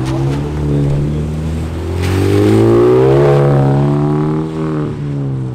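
Hyundai Genesis Coupe's engine revving hard as the car accelerates away on a wet road: the pitch climbs steadily for about two seconds, peaks a little past the middle, then holds and eases off toward the end.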